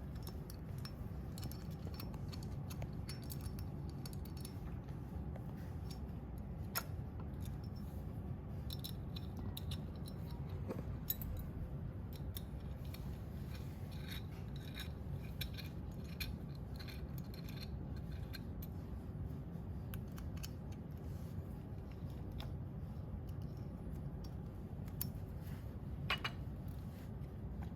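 Screws being tightened into a metal support arm with a hand tool: scattered light metallic clicks and scrapes, with a sharper click near the end, over a steady low hum.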